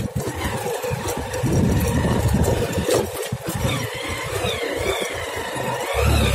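Motorcycle engine running as the bike rides over a rough dirt track, with a ragged, uneven low rumble.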